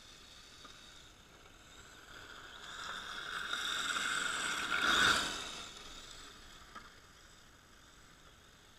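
HPI Sprint 2 Drift RC car's electric motor whining, with its tyres sliding on asphalt. It approaches, passes close about five seconds in, and fades away.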